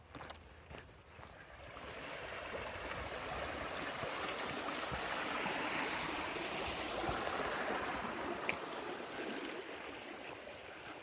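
A rushing noise that builds over a few seconds, holds, then slowly fades, with a single sharp click partway through.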